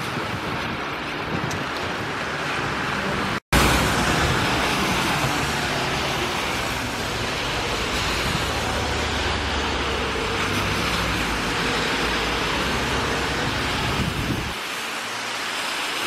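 Rain hissing steadily and cars driving past on a wet road, tyres swishing through standing water with a low engine rumble underneath. The sound cuts out for an instant about three and a half seconds in and comes back louder.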